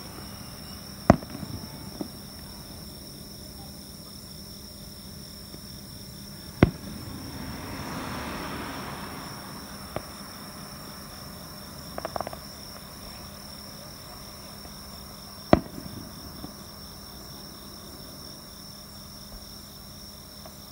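Distant fireworks shells bursting: three sharp booms, about a second in, about six and a half seconds in and about fifteen and a half seconds in, with a few fainter pops and crackles between, over steady insect chirping.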